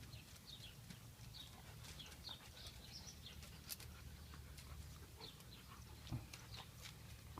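Faint, high-pitched animal chirps, many short ones in quick runs, over a low steady hum and a few soft clicks.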